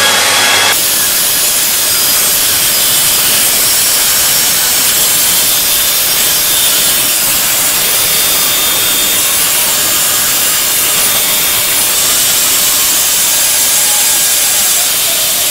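Hair dryer blowing hot air onto a refrigerator's frosted evaporator coils to melt the ice, a steady rushing hiss whose tone shifts slightly about a second in.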